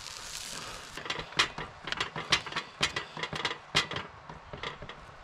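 Sizzling on a portable gas grill stops about a second in. It is followed by a string of sharp clicks and taps, about two or three a second, as the grill is handled.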